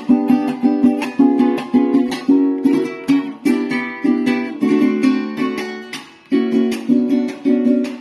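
Venezuelan cuatro with an Engelmann spruce top and teak body, strummed in a steady rhythmic chord pattern. The strumming breaks off and rings down briefly about six seconds in, then picks up again.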